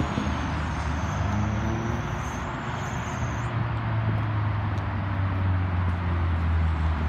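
2006 Lotus Elise S/C's supercharged four-cylinder engine running with a steady low note as the car drives slowly closer.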